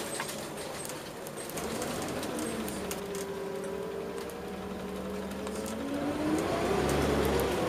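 Scania Omnicity single-deck bus's diesel engine, heard from inside the passenger saloon as the bus drives along, with light rattles from the interior. The engine note eases off in the middle, then climbs in pitch and gets louder near the end as the bus accelerates.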